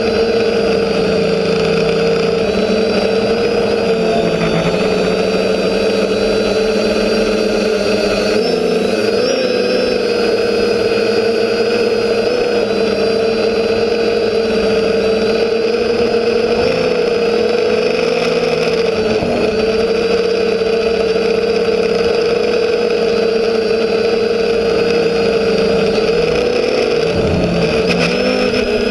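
TBS Discovery quadcopter's electric motors and propellers buzzing steadily in flight, the pitch wavering slightly a few times as the throttle shifts.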